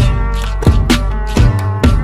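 Background music with a steady beat: a drum hit about every 0.7 seconds over a sustained deep bass.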